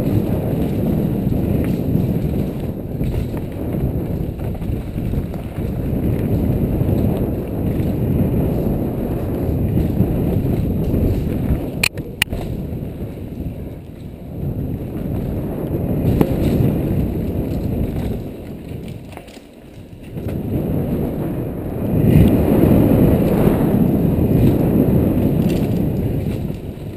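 Wind rushing over an action camera's microphone and tyres rumbling over a dirt trail on a fast downhill mountain bike descent, easing off briefly about two-thirds of the way through and then building again. A couple of sharp clacks sound about halfway through.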